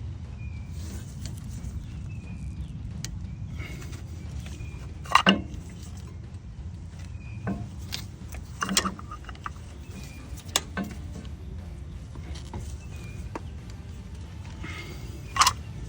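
Scattered metallic clinks and knocks of hand work on a Hummer H2 rear brake caliper as its piston is pushed back, over a steady low rumble. The sharpest knock comes about five seconds in, with lighter clicks spread through the rest.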